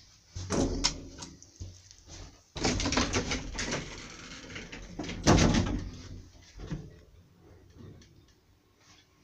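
Sliding doors of an old KONE elevator car moving, with clattering and knocks in three loud spells; the loudest clunk comes about five seconds in, after which it goes much quieter.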